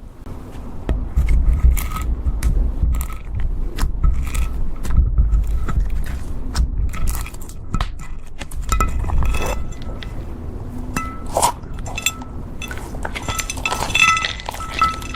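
Slime being squished and mixed by hand, with a steady run of sticky clicks and some clinking of small hard objects.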